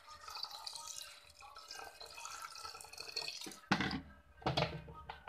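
Water poured from a jug into an aluminium pressure cooker of raw rice, a steady splashing trickle for about three and a half seconds, then two knocks near the end.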